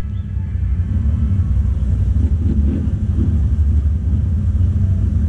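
Low, steady vehicle engine rumble, heard from inside a vehicle's cabin.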